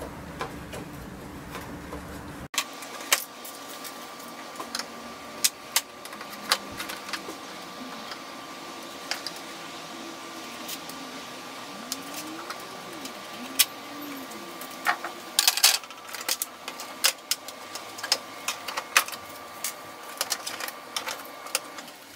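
Irregular clicks and taps of a hand tool against the plastic fasteners of a radiator fan shroud as they are worked out one by one, with a busier run of clicks a little past the middle.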